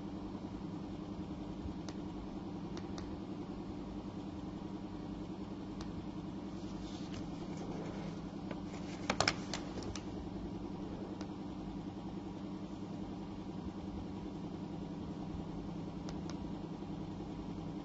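Steady low hum of running equipment, with a few soft clicks and a short run of louder clicks about nine seconds in.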